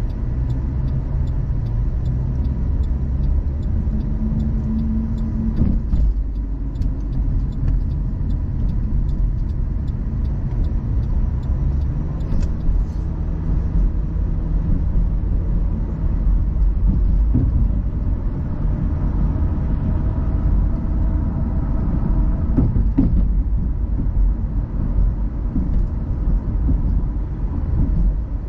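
Car driving on the road: a steady low rumble of tyres and engine with no sharp events.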